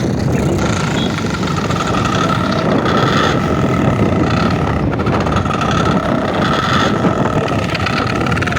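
Motorcycle running with a toy pipe whistle (peepee) fitted in its exhaust silencer, sounding a steady high tone in repeated spells over the engine and wind noise.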